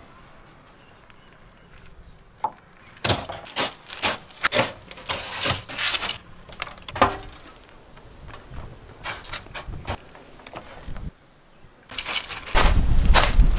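Crushed Pringles crisps crunching and rustling as chicken drumsticks are pressed and rolled in them, a run of irregular crackles. A loud, brief low rumble comes near the end.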